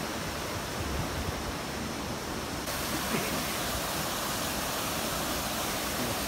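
Steady rushing of a hill stream over rocks, an even hiss that turns a little brighter about three seconds in.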